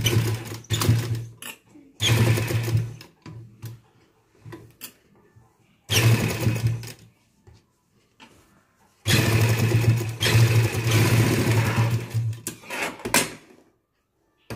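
Black domestic sewing machine stitching lace trim onto a fabric sleeve in short runs: about two seconds at the start, a second just after two seconds in, another around six seconds, then a longer run of about four seconds from nine seconds in, stopping a little before the end.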